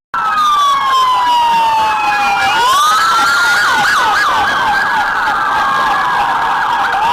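Police car siren: a long wail that falls slowly and then rises again, with a fast warbling yelp layered over it, starting abruptly.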